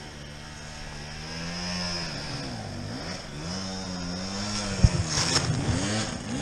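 Dirt bike engine running low at first, then revved up and down in repeated swells of throttle. Sharp knocks come about five seconds in.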